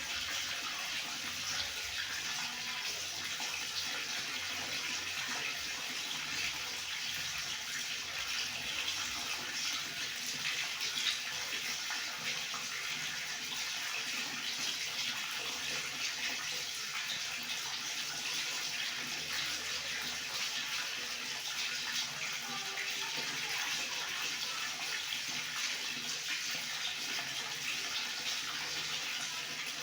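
Water running steadily from a tap, pouring and splashing into a basin or tub.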